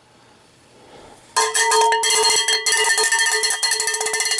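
Cowbell struck rapidly and repeatedly, a fast run of metallic hits on one ringing pitch, starting about a second and a half in.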